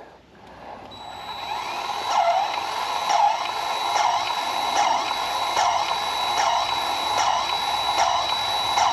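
Battery-powered grease gun running as it pumps grease into a front caster wheel's grease fitting on a zero-turn mower. A steady motor whine builds up over the first second, with a regular pump stroke a little under once a second.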